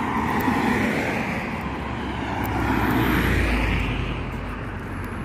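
Road traffic: a car passing close in the nearby lane, its tyre and engine noise swelling to a peak about three seconds in and then fading, over the steady hiss of more distant traffic.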